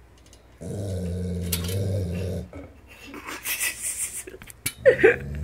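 Dog growling at its own reflection: a low, steady growl lasting about two seconds, then a short sharp sound near the end as a second growl begins.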